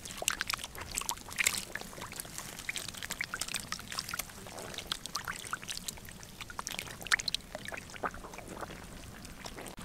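Catfish flopping and wriggling in a shallow muddy puddle: irregular small splashes and wet slaps in the shallow water, some sharper than others.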